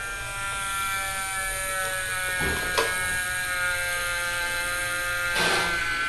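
Small electric sail-winch motor of a radio-controlled model raft whining steadily as it lowers the square sail, its pitch sinking slightly, with a sharp click about three seconds in.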